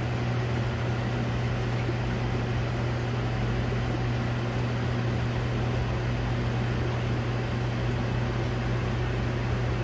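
Reef aquarium equipment running: a steady low hum of the pumps over a constant hiss of circulating water.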